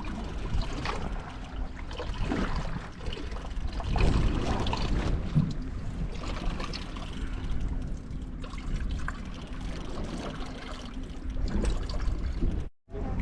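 Water trickling and lapping against the hull of a small boat, over a steady low hum. The sound cuts out briefly near the end.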